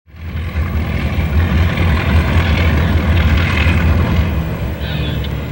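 Baldwin AS616 diesel locomotives working under load: a deep, steady engine rumble with a rough noisy layer above it, fading in at the start.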